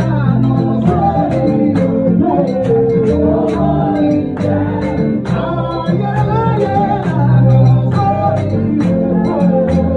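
Live gospel worship song: a man sings lead into a microphone over keyboard and guitar, with a steady beat.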